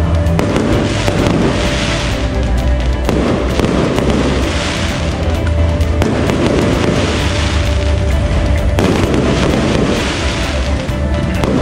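Aerial fireworks launching and bursting in quick succession, with crackling, in swells every two to three seconds, over loud music with a heavy bass.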